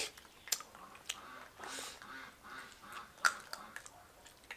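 Intermittent wet clicks and smacks of chewing and biting into salted duck, with a short breathy rush of noise just under two seconds in and one sharper click about three seconds in.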